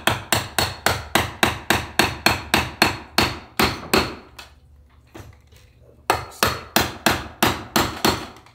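Small hammer tapping rapidly on the butt of an awl driven through saddle-seat leather, about four strikes a second. The run stops about four seconds in and starts again for a shorter run near the end. The tapping works the awl in as the seat leather is pulled tight, so the leather does not tear.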